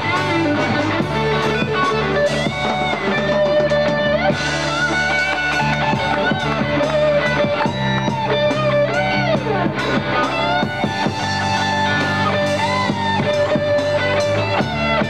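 Live rock band playing an instrumental passage: an electric guitar lead with notes bent up and down over a steady bass line and drum kit.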